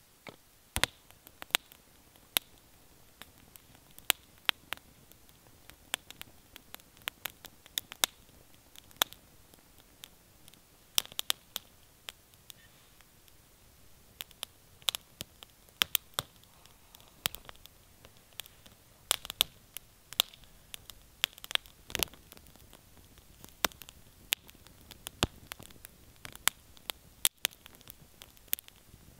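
Campfire of split kindling crackling and popping as it burns, with sharp irregular pops, several a second, over a soft steady hiss.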